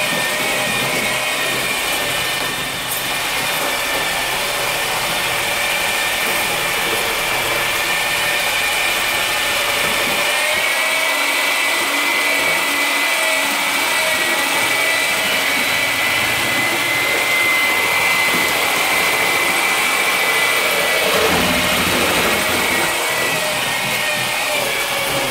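Electric drill with a paddle mixer attachment running steadily while it stirs building mix in a bucket, giving a continuous motor whine.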